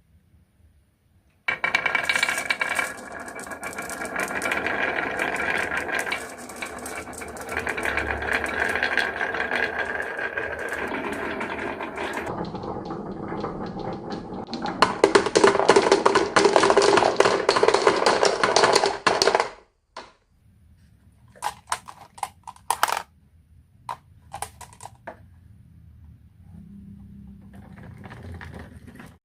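Marbles rolling and clattering down a wooden marble run: a dense, loud rattle of many small hard clicks that stops suddenly, followed by a few scattered clicks.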